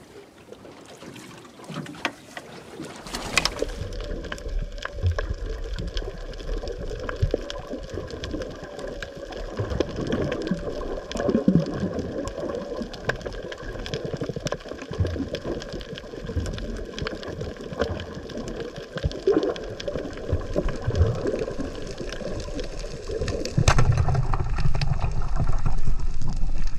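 A diver enters the water with a splash about three seconds in. After that comes muffled underwater sound through a camera's waterproof housing: rushing, gurgling water with a steady scatter of faint clicks. Near the end it becomes louder and deeper.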